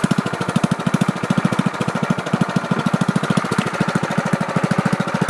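Lawn tractor engine running with a fast, even pulsing beat.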